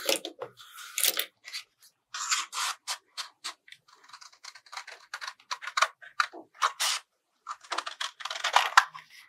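Scissors cutting through a sheet of stiff cardboard, an uneven run of short snips with brief pauses.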